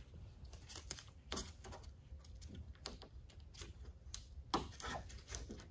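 Faint, scattered taps and rustles of gloved hands handling painter's tape and pressing a rubber trunk weatherstrip seal onto the deck lid, with a few sharper ticks.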